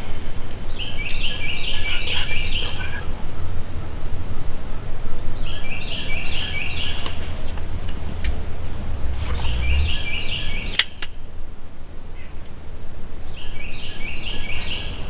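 A songbird sings the same short phrase of about five quick, high repeated notes four times, a few seconds apart. Low wind rumble runs underneath.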